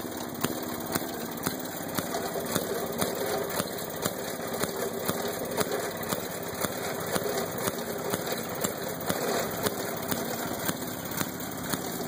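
Old Maytag wringer washing machine running, its agitator churning a load of clothes in water, with a steady mechanical drone and regular clacks.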